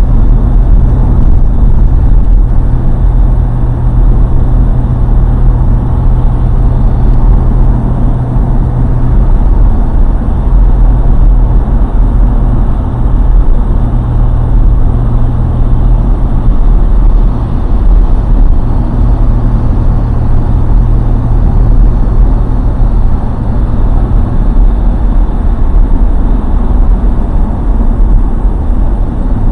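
Steady, loud low drone of a car on the move, road and engine noise, with a low hum that shifts slightly in pitch now and then.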